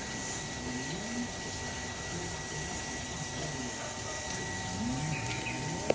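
Faint, indistinct voices over a steady thin electrical whine, with one sharp click at the very end.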